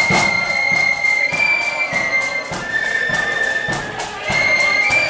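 Marching band playing a tune: high melody notes are held and step from one pitch to the next, over steady drum beats.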